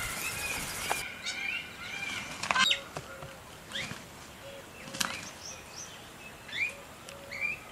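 Small wild birds chirping: many short rising whistles and chirps, with a short low note repeating about once a second and a few sharp clicks.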